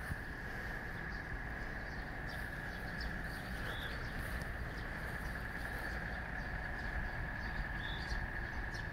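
Insects, typical of summer cicadas in the trees, droning in one continuous steady high buzz over a low rumble. Two brief chirps stand out, about four seconds in and near the end.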